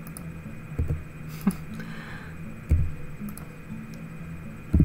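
Computer keyboard keys pressed one at a time as letters are typed into a grid cell: four or five separate clicks, each with a dull thump, at irregular intervals over a low steady hum.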